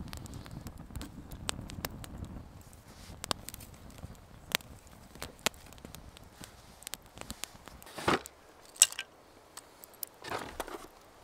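Small wood campfire crackling, with irregular sharp pops from burning sticks and a low rumble of flame for the first couple of seconds. The loudest pop comes about nine seconds in, and a short rush of noise follows near the end.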